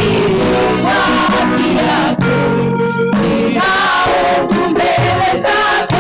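Gospel worship song: a choir of voices singing over steady instrumental backing.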